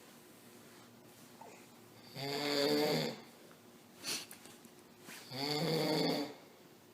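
A man snoring: two snores, each about a second long and about three seconds apart, with a brief sharp sound between them.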